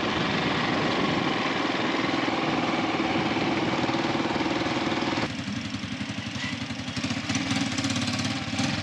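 An engine running steadily, with a loud rushing noise over it that stops suddenly about five seconds in, leaving the engine hum alone.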